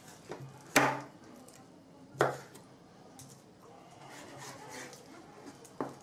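Knife slicing through a slab of pork belly and knocking down onto the cutting board: four sharp knocks, the loudest about a second in, with quieter scraping of the blade between them.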